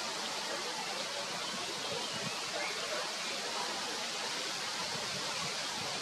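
Steady, even high hiss of outdoor background noise, with no clear bird call standing out.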